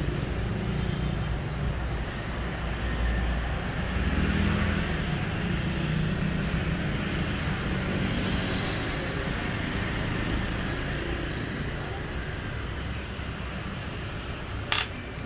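Steady low background rumble, like road traffic, with one sharp click about half a second before the end.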